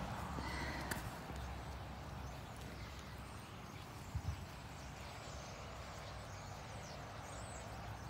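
Footsteps and rustling across a dry grass lawn, over a steady low rumble on the microphone, with a soft thump about four seconds in.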